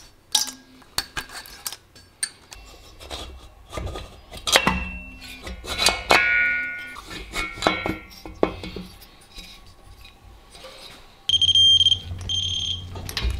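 Metal engine parts clinking and knocking as Porsche 911T cylinders and cylinder heads are fitted over the studs, with several sharp clicks and a little metallic ringing. Near the end a digital torque wrench beeps twice with a steady high tone, signalling that a head nut has reached its set torque.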